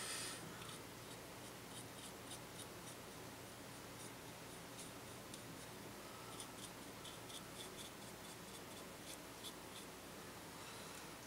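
Faint, irregular scratchy strokes of a small paintbrush working a thin India ink wash over the brickwork of a plastic model building wall. There is a short, louder rustle right at the start.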